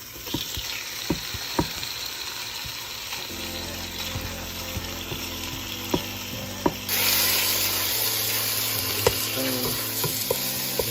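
Chicken frying in hot oil in a pan, a steady sizzle that jumps louder about seven seconds in, with a few light clinks of a utensil against the pan.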